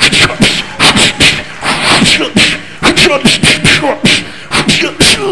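A man making kung fu fight sound effects with his mouth into a microphone: quick beatbox-style hits, whooshes and grunts, about three sharp bursts a second, imitating a martial-arts film fight.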